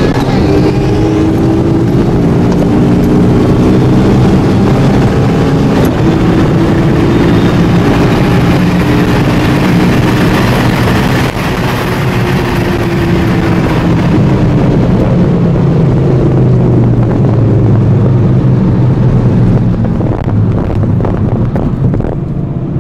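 Car engine pulling hard at high highway speed, heard from inside the cabin over loud wind and road rush. Its pitch holds steady and slowly climbs in places, with the level dropping slightly about eleven seconds in.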